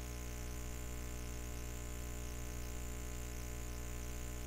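Steady electrical buzz: a low hum with many evenly spaced overtones under a layer of high hiss, unchanging throughout.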